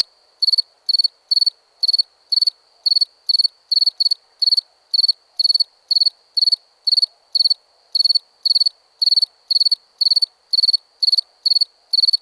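A cricket chirping in a steady, even rhythm, about two short high-pitched chirps a second.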